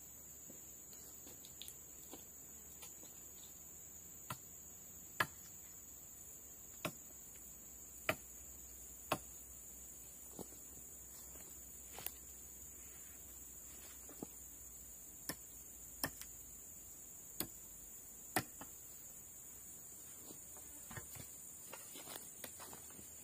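Steady high drone of forest insects, with about a dozen sharp clicks spaced irregularly as the wooden pole frame is worked by hand. Near the end come softer crackles of footsteps on dry leaf litter.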